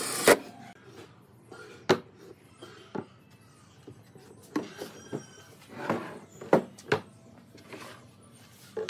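A cordless drill/driver's short whir ends in a sharp click at the very start as it seats a hinge screw. Then come scattered wooden knocks and clunks, about eight of them, as the wooden box and its hinged lid are handled on the workbench.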